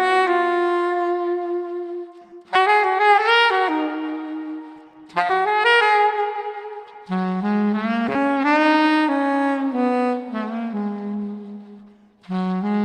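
Saxophone playing a melody of held notes in phrases of a few seconds, each phrase starting sharply after a short break.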